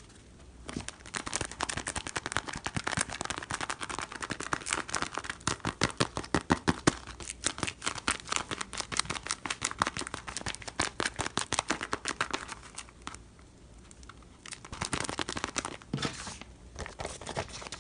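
Paper crinkling and rustling in quick, dense crackles as a handmade paper blind bag is handled and torn open. There is a short pause of about a second and a half partway through, then the crinkling resumes.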